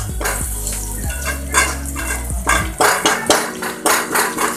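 Perforated metal spoon stirring and scraping around a black kadhai, about two strokes a second, with ginger and green chillies frying in the oil.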